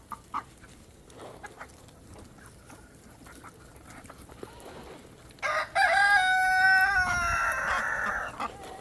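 Chickens clucking softly, then about five and a half seconds in a rooster crows loudly: one long call that holds its pitch, then falls and turns rough near the end.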